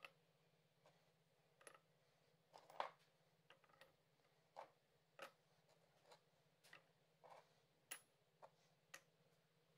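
Cast copper-alloy ingots clinking as they are set down and stacked one at a time on each other and on a steel-topped digital scale: a series of about fifteen short, quiet clinks, the loudest a little under three seconds in.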